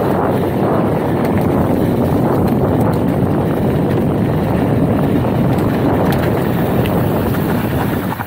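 Wind rushing over the microphone and mountain bike tyres rolling over loose, sandy dirt on a descent: a steady rushing noise with a few light clicks and rattles, easing right at the end.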